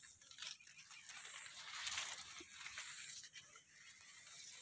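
Faint rustling and crackling of maize leaves as they are brushed and handled, with a few soft scattered clicks.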